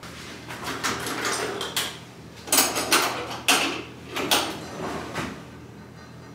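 Metal clicks and clanks from the stainless-steel lid of a top-loading ceramics kiln being unlatched and lifted open: a few light clicks, then four louder clanks about half a second apart in the middle.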